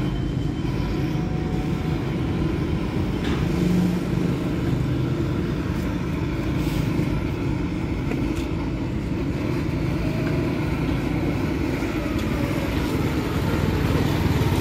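An engine running steadily at low speed, an even low drone, with a few faint clicks over it.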